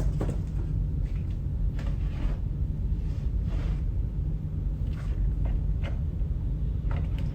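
A steady low rumble, with faint short rustles and clicks scattered through it.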